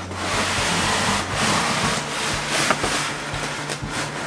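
Styrofoam packing insert being slid out of a cardboard box, the foam rubbing and scraping against the cardboard with a few sharper scrapes along the way.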